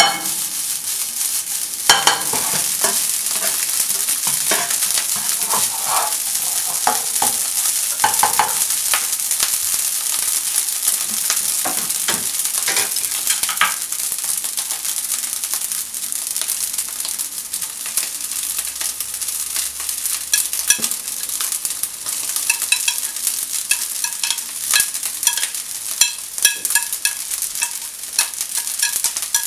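Egg fried rice sizzling in a hot nonstick frying pan as it is stir-fried, with a steady high hiss broken by many short clicks and scrapes of the utensil and rice against the pan.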